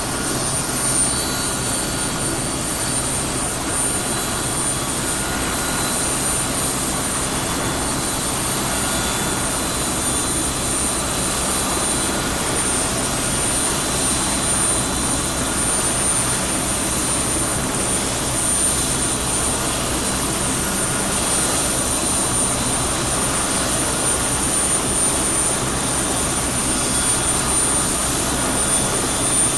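Helicopter running steadily: a continuous engine and rotor noise with a faint, steady high-pitched whine over it, holding level throughout.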